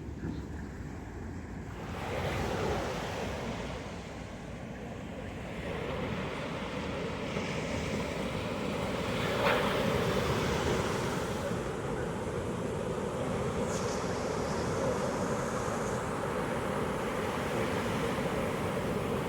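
Pacific ocean surf breaking on a beach: a continuous rushing wash of waves. It swells about two seconds in, builds from about six seconds, and one wave crashes loudest about halfway through before the surf settles into a steady wash.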